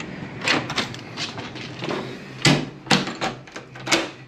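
A hotel room door is unlocked and opened by its lever handle: a quick series of clicks and clunks from the handle and latch, loudest twice close together about two and a half to three seconds in.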